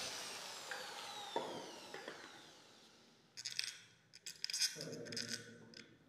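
Corded electric drill spinning down after drilling stainless steel, its whine falling in pitch and fading over about three seconds. Then light clicks and rubbing as small metal lock parts are handled.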